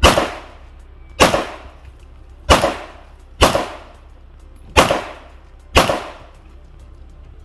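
Six handgun shots fired at an irregular pace, roughly a second apart, each trailing off in a short echo.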